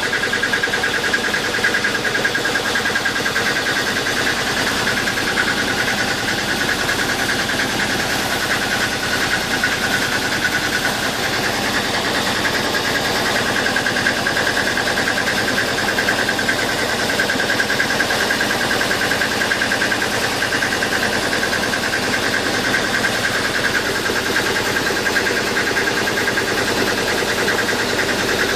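The boat's own engine running steadily while under way, a constant even drone with a fine rapid pulse.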